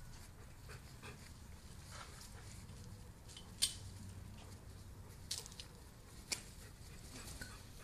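Faint sounds of golden retriever puppies at play: a few short, soft yips, with three sharp clicks in the second half over a low steady rumble.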